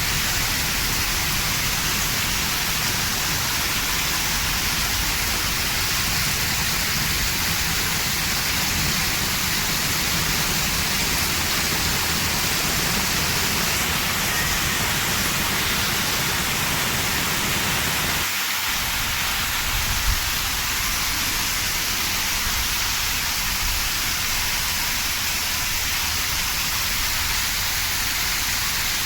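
Heavy rain falling steadily, an even hiss across the whole range with a low rumble beneath, and one short thump about twenty seconds in.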